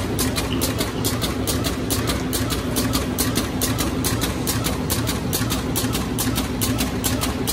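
Zipper pouch making machine running at speed, its double cutter chopping in an even rhythm of about two and a half cuts a second (150 cuts a minute) over a steady machine hum.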